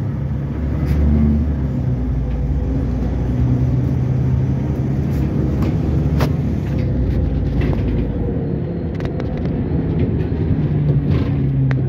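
NefAZ-5299 city bus heard from inside the passenger cabin while driving: a steady low engine drone and road rumble whose pitch shifts a little with speed, with short rattling clicks here and there.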